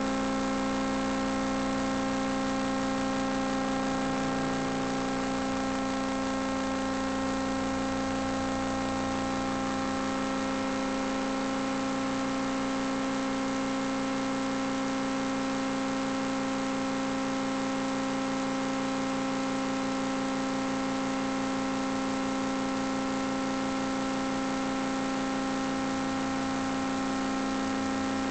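Steady electrical hum made of several fixed tones that do not change as the vehicle moves, typical of interference picked up by a vehicle-mounted camera recorder. Beneath it a faint low rumble from the off-road vehicle's engine swells about four seconds in and again near the end.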